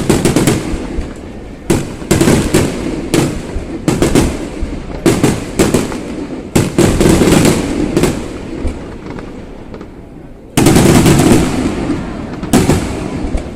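Aerial fireworks shells bursting one after another, a dozen or so sharp bangs at uneven intervals, each trailing off in a rumbling echo. A dense, loud volley of bursts comes about ten and a half seconds in.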